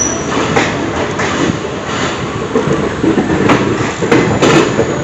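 Nagaland Express passenger train rolling along the track, its wheels knocking irregularly over rail joints and points over a steady running rumble.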